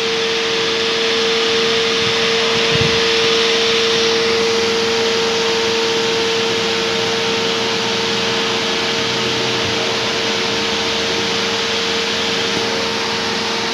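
Portable electric disinfectant fogger running steadily: an even blower hiss with a constant humming tone.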